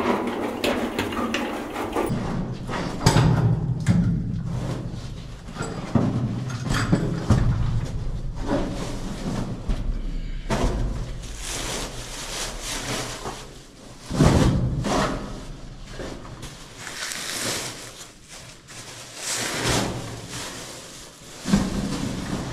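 Heavy bags of ore being handled and moved in a mine stope: irregular thuds, knocks and scraping, with plastic bags rustling. A steady low hum runs under parts of it.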